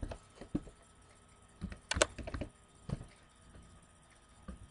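Keys pressed on a CNC control's keyboard: a few irregular clicks, the loudest about two seconds in, as values are typed into the program.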